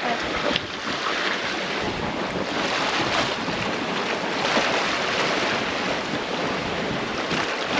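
Sea water washing past a sailboat under sail, with wind buffeting the microphone: a steady wash of noise.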